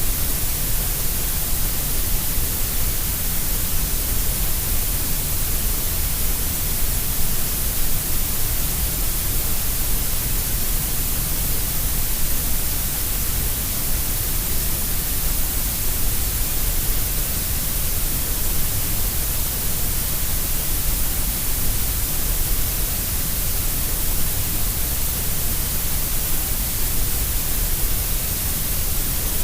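Grey noise: a steady, even hiss with no breaks or changes, carrying more weight in the deep lows and the high treble than in the middle.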